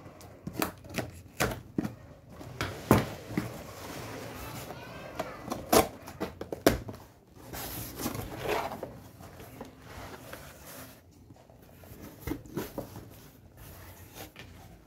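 A cardboard shipping box being opened by hand: a string of sharp taps and knocks against the cardboard, then flaps being pulled back and cardboard rustling and rubbing, quieter toward the end.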